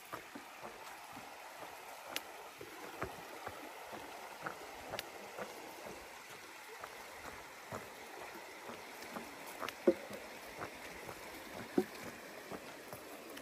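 Creek water running steadily over a low concrete crossing, with scattered light taps and clicks of footsteps on wooden boardwalk planks. Two louder knocks come in the second half.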